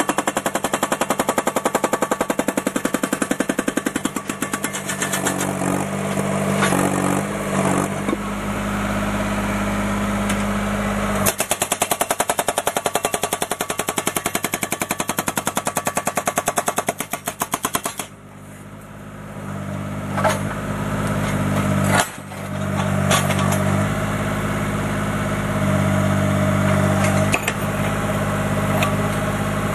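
Hydraulic breaker hammer on a JCB mini excavator pounding concrete in rapid blows, over the excavator's running engine. About two-thirds of the way through, the hammering stops for a couple of seconds, then starts again.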